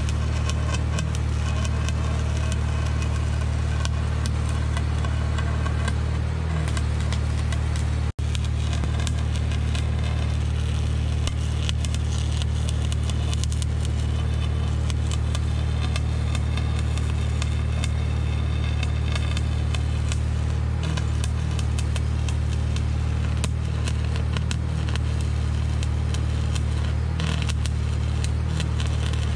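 John Deere 755 compact utility tractor's three-cylinder diesel engine running at a steady speed, with constant clattering and rattling over it. The sound breaks off for an instant about eight seconds in.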